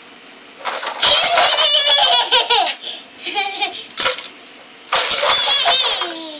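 Two loud bursts of a battery toy truck's electronic engine sound effect, played through its small speaker as the button on top is pressed, with a small child laughing.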